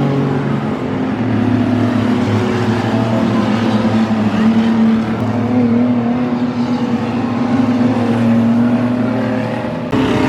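Stock cars racing on a speedway track, their engines running in a steady loud drone that shifts a little in pitch, with an abrupt change near the end.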